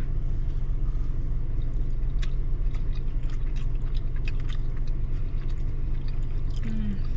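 People biting into and chewing a soft cream-filled sugar cookie, with scattered small mouth clicks. A steady low rumble from the car cabin runs underneath.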